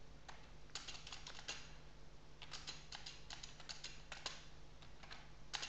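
Computer keyboard typing: faint, scattered key clicks in short runs, over a low steady hum.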